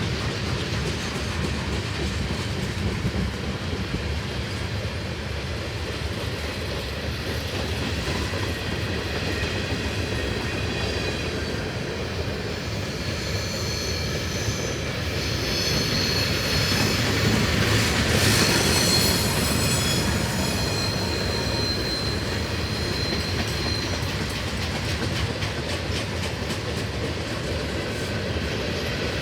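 Freight train cars rolling past with a steady rumble and clickety-clack over the rails. About halfway through, a high-pitched wheel squeal builds, peaks, then fades.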